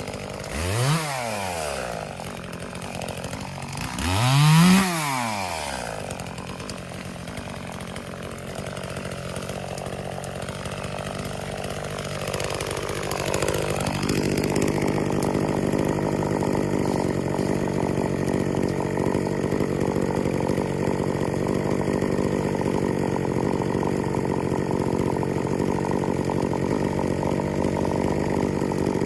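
Chainsaw idling and blipped twice in quick revs near the start, then opened up about halfway through to run steadily at full throttle. A steady low engine drone runs underneath.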